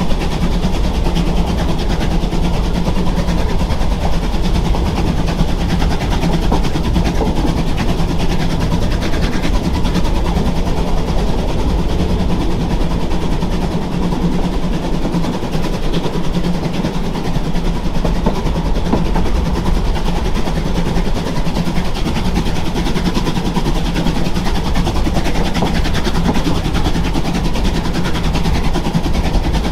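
Narrow-gauge train running, heard from on board: a steady, even rumble with no breaks.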